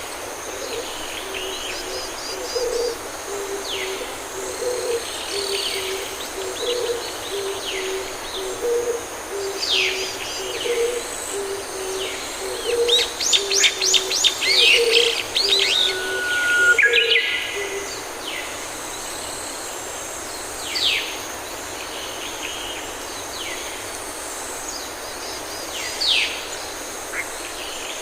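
Rainforest birds calling: a low two-note call repeated about every two seconds for the first two-thirds, over many short, high chirps and falling whistles. A faint, steady, high whine runs underneath.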